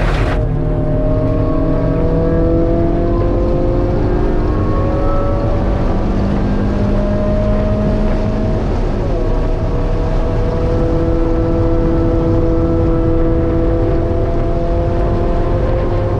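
A 1.6-litre Mazda Miata's four-cylinder engine accelerating, heard from inside the cabin. Its pitch climbs steadily, drops at one upshift about halfway through, then climbs again, over steady road and wind noise.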